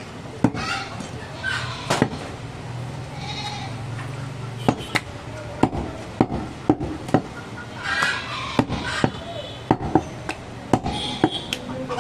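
Butcher's cleaver chopping goat meat on a wooden chopping block: sharp, irregular chops, about one to two a second, with short pauses between runs of strokes.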